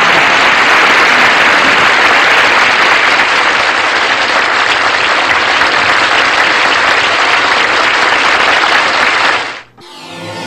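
Sitcom studio audience applauding steadily, cut off suddenly near the end. A music sting begins just after.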